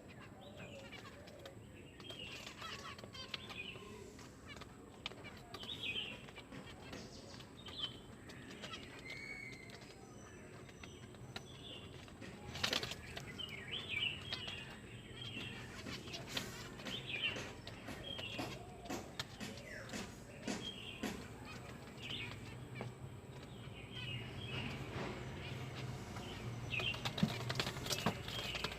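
Pet cockatiel chirping in short, repeated calls, with scattered clicks and knocks of movement, the loudest about halfway through.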